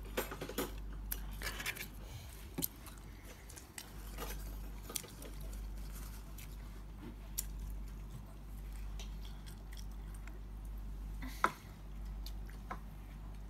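Scattered small clicks and taps from handling a cardboard pizza box and paper napkin while eating, with one sharper click about eleven and a half seconds in, over a steady low hum.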